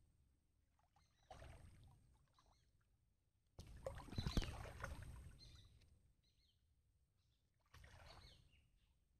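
Shallow water splashing and sloshing as a man wading knee-deep hauls a crab line and lifts a small hoop net through the water. It comes in three bursts, the second and loudest starting a little under four seconds in and lasting about two seconds.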